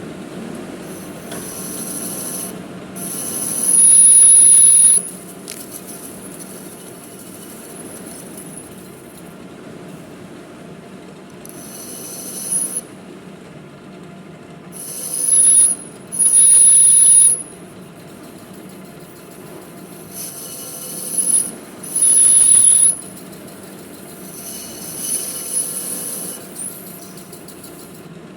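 Manual metal lathe running steadily, with the cutting tool squealing loudly on the work in several separate cuts of a second or two each.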